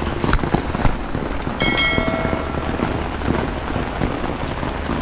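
Steady rain pattering densely on an umbrella and wet ground. About a second and a half in, a short chime sounds, preceded by a couple of sharp clicks.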